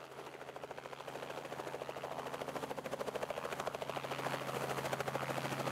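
Light helicopter in flight: rapid, even rotor-blade chop over a steady engine hum, growing gradually louder as it approaches.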